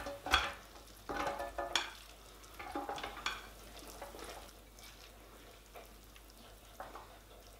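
Silicone spatula scraping and knocking against a glass bowl and a metal loaf pan as a moist, mayonnaise-dressed rice mixture is spooned into the pan. A few short scrapes and soft knocks come in the first three seconds or so, then only faint scuffs.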